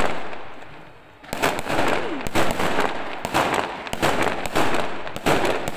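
Aerial fireworks bursting: a loud bang at the start that fades away over about a second, then a rapid, continuous run of bangs and crackling from many shells.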